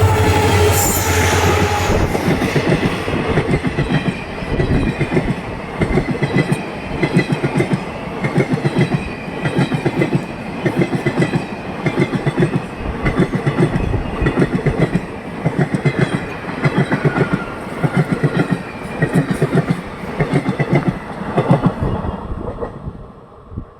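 A train passing at speed: heavy wheels clattering over rail joints in evenly repeating groups of clicks, about one group a second, after a loud steady rumble from the locomotive for the first couple of seconds. The sound cuts off abruptly near the end.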